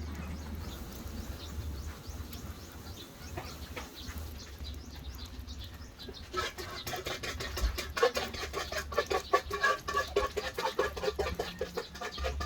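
Birds calling: faint thin chirps at first, then from about six seconds in a fast, busy run of short clucking calls, several a second.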